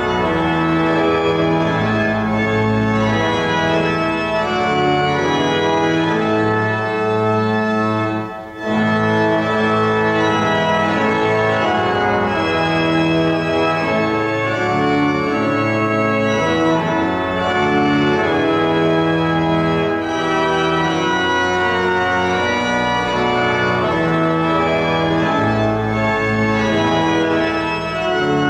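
Church organ playing a slow psalm tune in long held chords, with a short break about eight seconds in before the next phrase.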